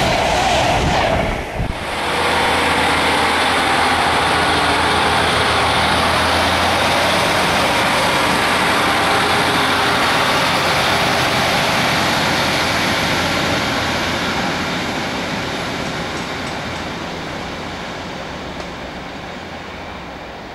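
A fast passenger train rushes past close by for the first second or so. After a sudden break, a Northern Sprinter diesel multiple unit runs away along the line with a steady diesel engine note and wheel rumble, fading gradually over the last several seconds as it recedes.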